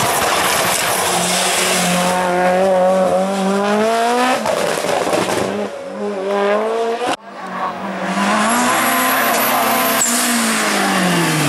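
Racing car engines at full throttle on a hill-climb: the pitch climbs, drops sharply at a gear change about four seconds in, and climbs again. After an abrupt break about seven seconds in, another hard acceleration follows, and near the end the engine pitch falls away as a car goes by.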